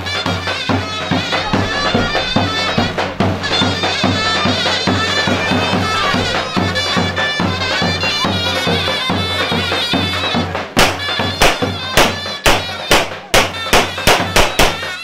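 Traditional folk music: a shrill reed instrument plays a wavering, ornamented melody over a steady drum beat, with a run of loud, sharp drum strokes from about eleven seconds in.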